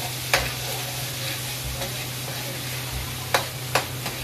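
Minced garlic sizzling in hot oil in a wok while a spatula stirs it. The spatula knocks sharply against the pan once early and twice close together near the end.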